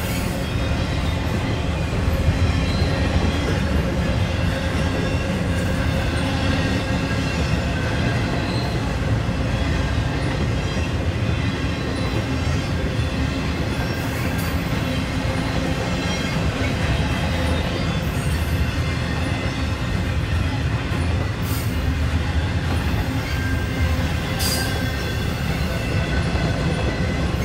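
Intermodal freight train rolling slowly past, with a steady rumble of the cars and thin, steady squealing from the wheels throughout.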